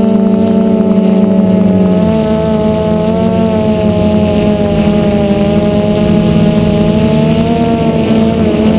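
DJI F450 Flame Wheel quadcopter's brushless motors and propellers buzzing steadily, heard up close from a camera mounted on the airframe. The pitch drifts slightly as it flies, with a small drop in the lowest tone about two seconds in.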